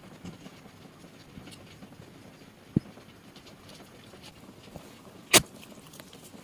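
Low background hiss with a few faint clicks, a short soft thump almost three seconds in, and a louder sharp knock a little over five seconds in.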